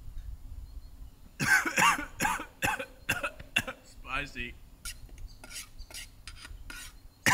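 Eating noodle soup from a camp mug with a spoon: a run of loud slurps starting about a second and a half in, then short clinks and scrapes of the spoon in the mug, and one more loud slurp near the end.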